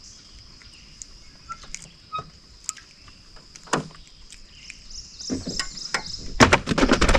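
Steady high insect drone with scattered small clicks from handling fish and tackle in a small boat. About five seconds in, a run of louder knocks and splashing builds as a bluegill is flung out of the boat.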